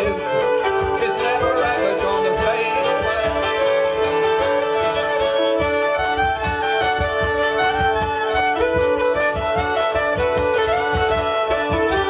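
Live folk band playing an instrumental passage: a fiddle carries a moving melody over a steady drone, with regular cajón beats underneath.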